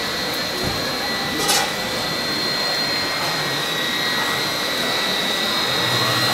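Radio-controlled Volvo A40FS model dump truck running: a steady high-pitched whine over a hiss, with a brief louder burst about a second and a half in.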